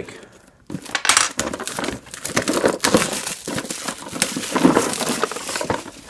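A cardboard puzzle box being cut open with a craft knife and handled: scraping, rustling and small knocks, starting a little under a second in.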